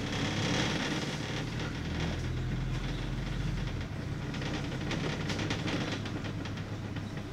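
Inside a moving bus: the engine's steady low drone and road rumble, with the body and windows rattling and clattering, most busily around five seconds in.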